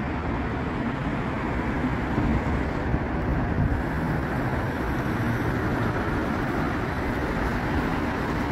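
Steady city road traffic noise: a continuous even rumble of passing cars, with no single vehicle standing out.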